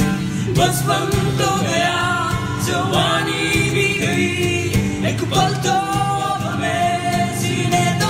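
A song with several voices singing together over strummed guitar.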